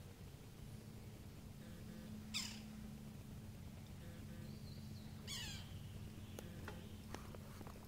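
A bird gives two quick, sharp descending calls about three seconds apart, over a low steady hum.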